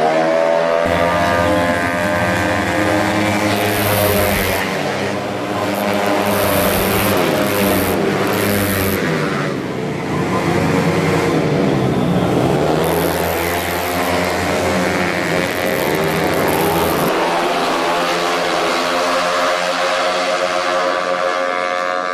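A pack of 115cc automatic race scooters running hard, several engines overlapping at a high pitch that rises and falls as riders accelerate, back off and pass by.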